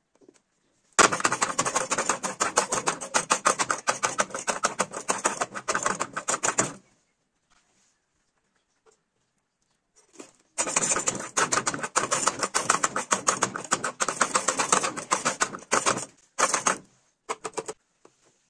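Homemade spring-loaded plunger chopper made from a plastic jar, pressed rapidly over and over: a fast run of plastic clacks as its blades chop a green bell pepper, a pause of a few seconds, then a second run.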